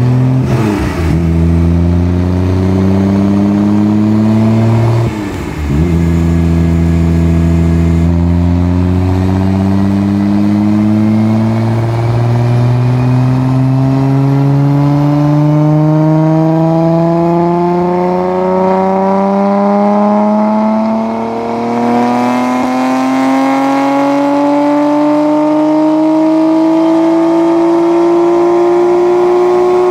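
Nissan R32 Skyline GT-R's twin-turbo RB26 straight-six making a power run on a chassis dyno. After a brief dip about five seconds in, the engine note climbs slowly and steadily in pitch under load for the next twenty-odd seconds.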